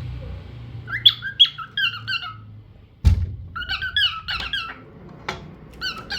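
Lutino cockatiel giving runs of short chirping calls, several quick notes in each run, in three bursts. A single sharp knock comes about three seconds in.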